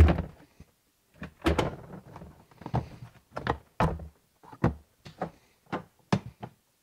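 A series of about ten hard plastic knocks and thunks, spaced irregularly, from a Milwaukee Packout tool box being handled: its hinged front doors swung shut and its parts latched and worked by hand.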